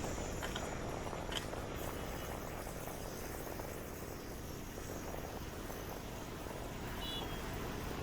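Crickets trilling faintly over a steady low rumble of outdoor background noise, with a short high chirp about seven seconds in.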